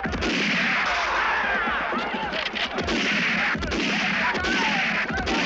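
Western-film gunshots fired one after another, roughly one a second, each with a long echoing tail.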